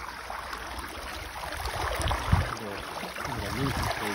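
Water rushing and splashing along the hull and wake of a yacht under way, with wind buffeting the microphone; the loudest gust comes a little over two seconds in.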